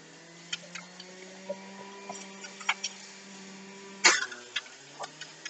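Light clicks and knocks of kitchen containers and utensils being handled over a faint steady hum, with one sharp knock about four seconds in.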